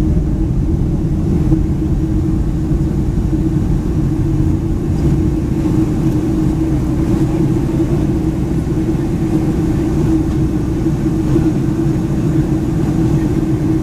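Steady cabin noise of a Boeing 757-200 airliner in descent, heard over the wing: a constant low rumble of engines and rushing air with a steady hum.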